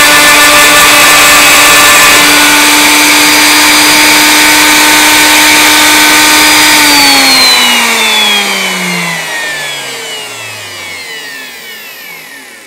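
Wood router spindle on a hobby CNC machine running at full speed with a steady whine. About seven seconds in it is switched off and spins down, its pitch falling and fading as the program pauses.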